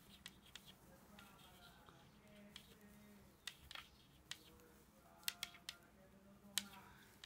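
Knitting needles clicking faintly and irregularly as stitches are worked, over a faint steady hum.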